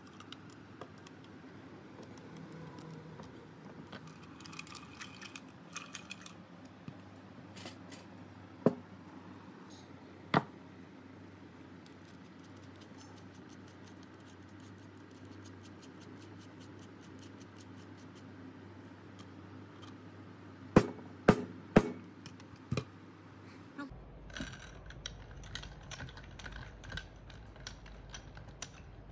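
Light clicking and clinking of small metal parts and tools being handled, with a few sharp knocks, one about nine seconds in and one about ten seconds in, and a quick run of four a little after twenty seconds.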